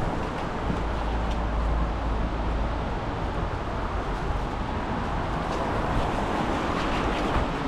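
City street traffic: cars going by with a steady low rumble, heaviest in the first few seconds.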